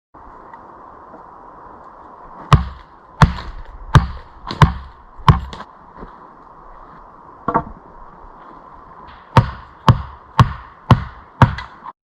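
Heavy chopping blows into wood: five strikes at an even pace, a lone weaker hit, then five more slightly quicker strikes, each a deep thud with a sharp crack, over a low hiss.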